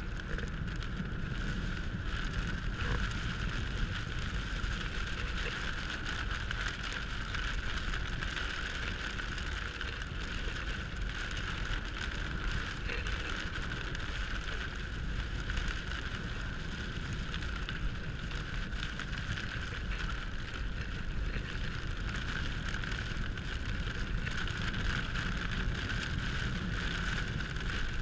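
Steady noise of a car driving in rain, heard from inside the cabin: rain on the windscreen and tyres hissing on the wet road over a low rumble.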